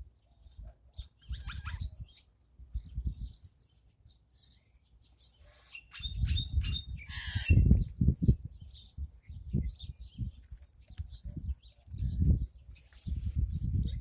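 Pet birds chirping in short scattered calls, busiest and loudest about six to eight seconds in, over repeated low thumps and rumbles.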